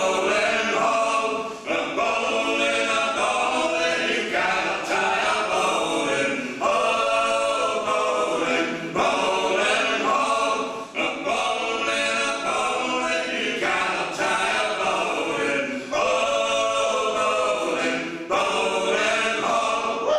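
Four male voices singing a folk song unaccompanied in close harmony, phrase after phrase with short breaths between.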